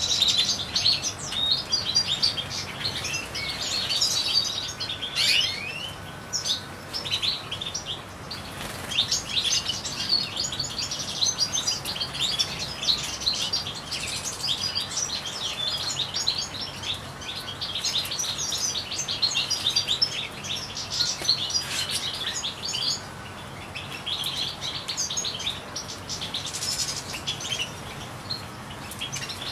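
European goldfinches singing and twittering, a dense, continuous run of quick, high chirps.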